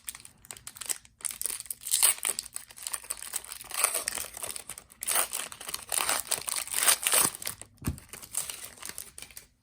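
Plastic wrapping on a sealed trading-card box and its packs crinkling and tearing in irregular bursts as it is pulled open by hand. The sound stops just before the end.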